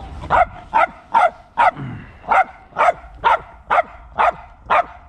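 A dog barking over and over, short sharp barks at about two a second, with a brief pause about two seconds in.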